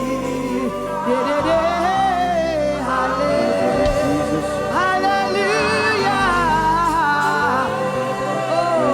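Gospel worship song: sung vocals with long held, wavering notes over a steady instrumental backing.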